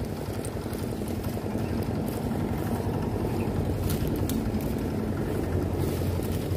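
A small engine running steadily, heard as an even low hum with a couple of steady tones.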